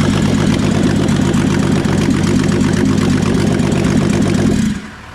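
Holden VT Commodore's Ecotec V6 running loud and steady with no exhaust fitted, then shutting off abruptly near the end.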